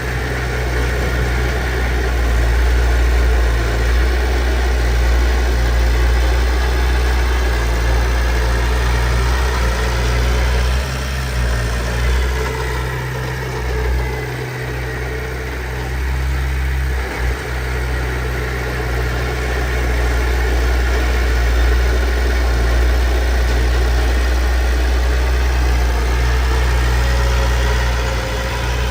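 Diesel engine of heavy earthmoving machinery running steadily. About halfway through, the engine note dips and then comes back up.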